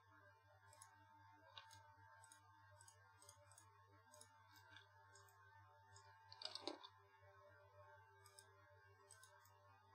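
Faint computer mouse and keyboard clicks, scattered irregularly, with a slightly louder cluster about six and a half seconds in. A low, steady electrical hum runs underneath.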